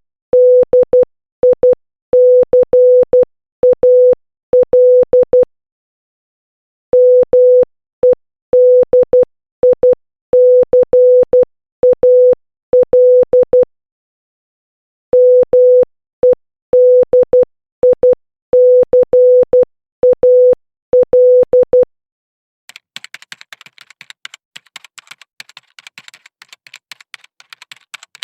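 Morse code practice tone: a steady mid-pitched beep keyed on and off in short dots and longer dashes, in three runs separated by pauses of about a second and a half. About three-quarters of the way through the beeping stops and gives way to fainter, rapid, irregular clicking.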